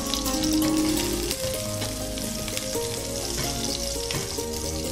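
Chopped green chillies sizzling in a spoonful of hot oil in a frying pan, a steady hiss, with background music playing underneath.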